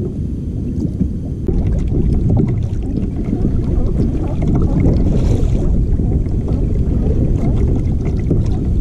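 Wind buffeting the microphone on open water, a steady low rumble, with scattered small clicks.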